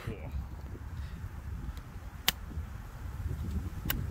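Steady low rumble of wind on the microphone, broken by a sharp crack about two seconds in and a fainter one near the end.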